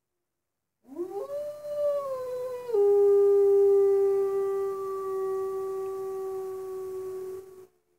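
Wolf howling once, heard through a cabin window. The howl starts about a second in, rises in pitch and holds, then drops sharply to a lower steady note just under three seconds in and holds it for about five seconds before stopping.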